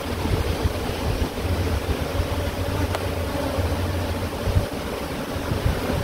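Wind buffeting the microphone over the steady hum of a large honeybee colony, with masses of bees in the air around a freshly opened hive.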